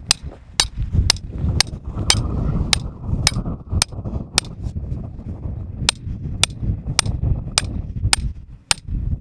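Hammer striking metal in a steady rhythm of about two sharp blows a second, with a short pause about five seconds in, over a low rumble.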